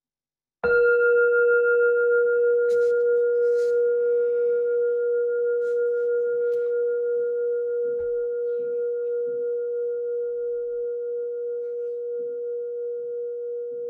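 A meditation bell struck once, about a second in, marking the close of a meditation sitting. It rings on as one steady low tone with a fainter higher overtone, wavering slowly in loudness and fading only gradually.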